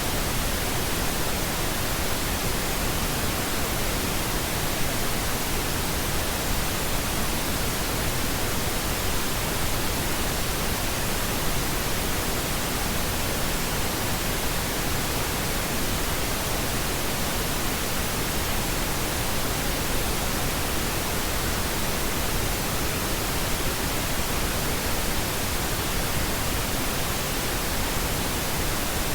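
Steady pink noise: an even, unchanging hiss spread across the whole range, with no events or changes.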